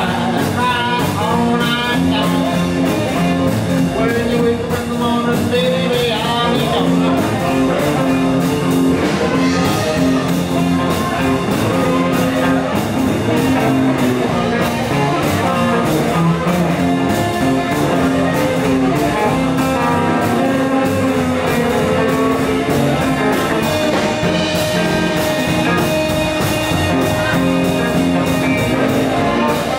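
Live blues and rock-and-roll band playing: electric guitar, upright bass and drums keeping a steady beat, with a man singing over it in the first several seconds.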